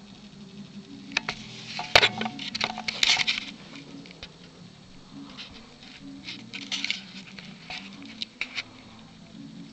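Dry crackling rustles and sharp clicks of wood-shaving bedding, disturbed as a Colombian red-tail boa shifts its coils while swallowing a rat. The rustles come in two spells, about a second in and again from about five and a half seconds, over a steady low hum.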